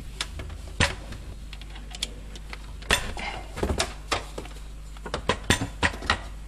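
Scattered metallic clicks and clinks from a drill bit being changed in the toothed chuck of an electric drill, with a few knocks as the drill is handled and set on the wooden bench, several in quick succession near the end. The drill motor is not running.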